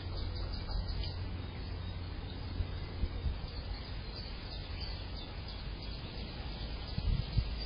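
Garden ambience with faint short bird chirps over a steady low rumble, and a few soft low thumps near the end.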